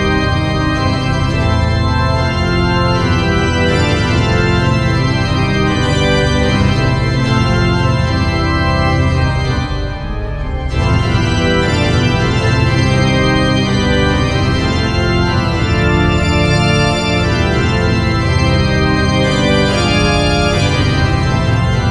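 Instrumental background music carried by sustained organ chords, dipping briefly about ten seconds in.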